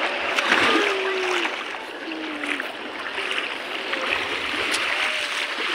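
Small waves washing over sand in shallow sea water, a steady rushing wash, with faint distant voices calling.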